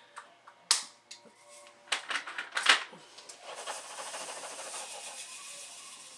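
Small plastic clicks and taps of diamond-painting work, from the drill pen and resin drills against the tray and canvas: one sharp click under a second in, then a quick cluster about two seconds in, followed by about three seconds of steady dry rustling.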